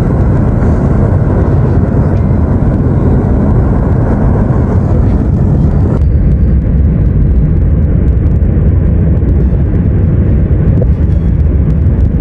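Erupting lava fountains making a loud, steady, deep rushing noise. About halfway through, the higher part of the noise cuts off suddenly, leaving the deep rush.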